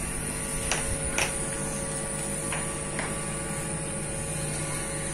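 Steady electrical hum with a faint high whine above it, and a few faint ticks in the first three seconds.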